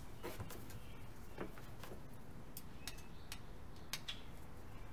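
Irregular light metallic clicks and taps as the cantilever brake arms on a bicycle fork are handled and fitted.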